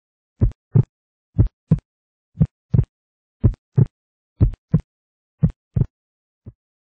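Heartbeat sound effect: six paired low thumps, lub-dub, about one pair a second, then a single fainter thump near the end.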